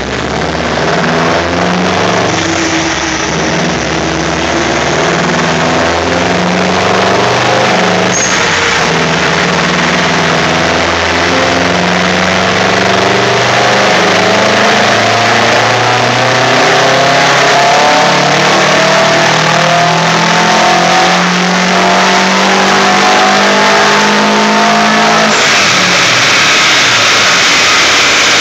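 Subaru WRX STI's turbocharged flat-four pulling hard under load on a chassis dyno, its revs climbing slowly and steadily through a long run. Near the end the engine note drops away abruptly, leaving a steady rushing noise.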